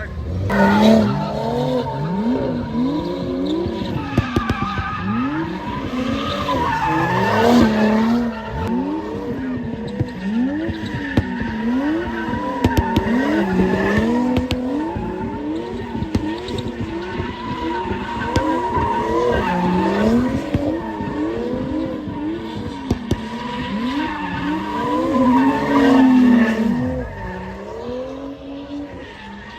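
A drift car's engine revving hard and falling back over and over, its pitch climbing and dropping every second or two, with the steady squeal of tyres sliding sideways on tarmac and scattered sharp clicks. The sound fades somewhat near the end.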